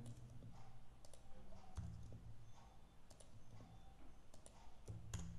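Scattered, irregular clicks of a computer keyboard and mouse while text is selected, copied and pasted in a code editor, over a faint low hum.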